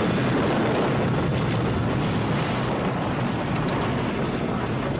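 Film sound effect of a large bomb explosion: the continuing rumble of the blast and fireball, steady throughout, with no single sharp bang.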